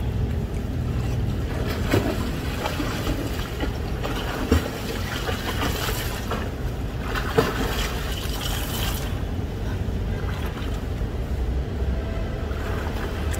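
Pool water splashing from a swimmer's strokes, over a steady rumble of wind on the microphone; a few sharper splashes stand out in the first half.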